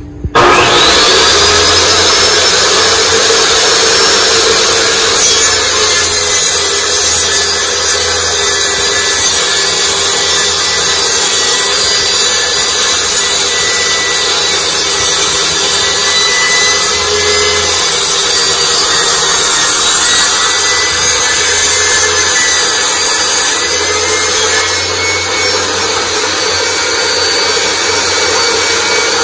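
Ryobi table saw switched on just after the start, its motor whining up to speed and then running loud and steady while a plywood sheet is fed through the blade.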